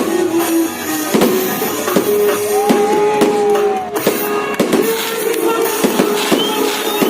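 Fireworks going off in repeated sharp bangs and crackles over loud music playing on a sound system.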